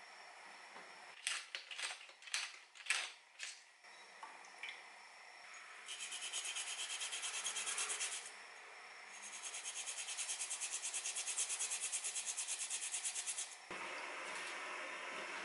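Fresh ginger grated on a flat metal grater: two bouts of quick, even rasping strokes with a short pause between them. Before them come a few sharp clicks of chopsticks and a ladle against the pot, and near the end a steady hiss takes over.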